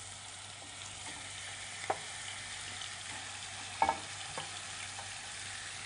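Raw minced meat sizzling in hot oil as it is stirred and broken up with a spatula, with a few short knocks of the spatula against the pot.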